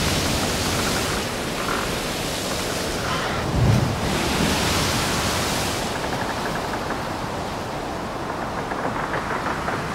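Storm sound of wind and heavy surf: a steady rushing noise that swells and eases, with a low boom about three and a half seconds in.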